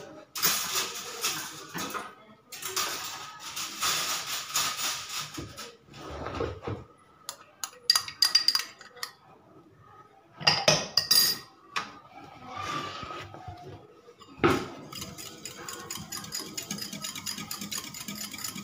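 Steel kitchen utensils clinking and scraping against a steel bowl, with a few sharp ringing clinks midway. Near the end, a wire whisk beats curd in the steel bowl with fast, even strokes.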